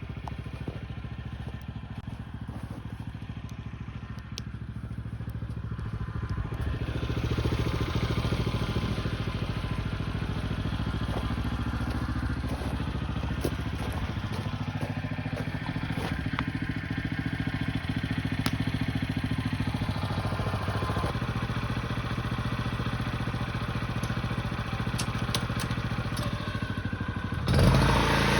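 Small petrol engine of a snow-clearing machine running steadily. It gets louder about seven seconds in and louder again with a sudden change near the end.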